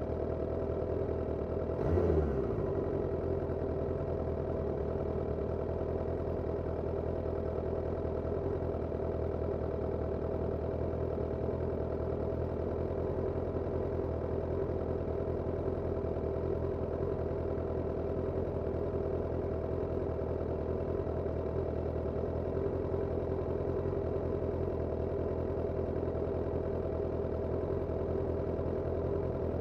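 Suzuki Katana 750 motorcycle's inline-four engine idling steadily, heard from under the seat, with one short blip of the throttle about two seconds in that drops back to idle.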